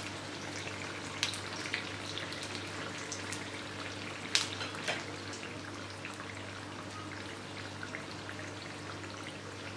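Battered banana fritters frying in shallow oil in a non-stick pan: a light, steady sizzle and crackle, with a few sharp clicks scattered through it and a low steady hum underneath.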